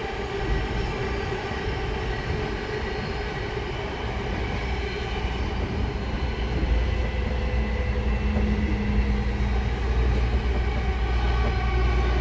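Tokyo Metro 05 series subway train running, its permanent-magnet synchronous traction motors and inverter giving a steady whine of several held tones over the rumble of the wheels. The low rumble grows louder about halfway through.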